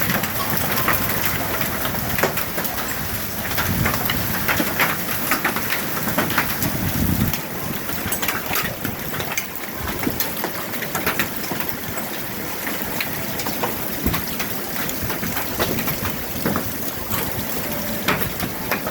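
Hailstorm: hailstones pelting down as a dense run of sharp clicks and rattles over a steady rushing roar of heavy rain.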